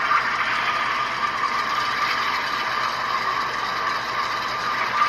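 Two HO scale model diesel locomotives pushing against each other: a steady mechanical clatter of their motors, gear drives and wheels mixed with the sound decoders' diesel engine sound.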